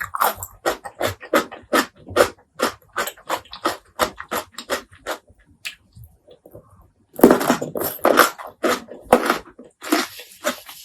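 Close-miked wet chewing and mouth smacks, about three a second, with a louder, denser stretch of eating noise about seven seconds in.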